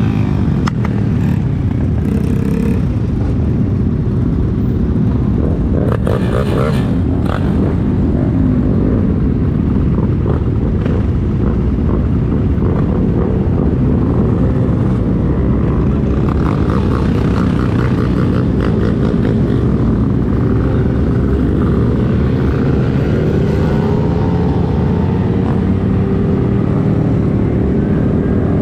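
Motorcycle engine running under way, its pitch rising and falling as the bike accelerates and slows, under a constant low rumble of wind on the microphone.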